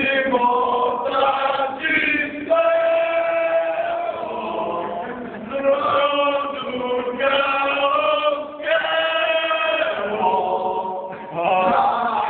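A group of men chanting together loudly, holding long notes of about a second each that step up and down in pitch, with short breaks between phrases.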